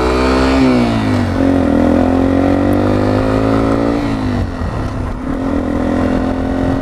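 Sinnis Terrain motorcycle engine accelerating through the gears: the revs climb, fall away about half a second in, climb again, drop near four seconds in, then hold steady at cruising speed. Wind rushes over the helmet-mounted microphone throughout.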